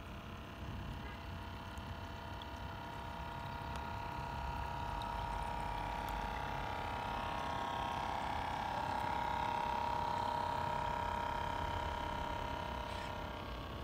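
Radio-controlled Orca model boat's motor running with a steady high whine that grows louder as the boat passes close and eases off near the end.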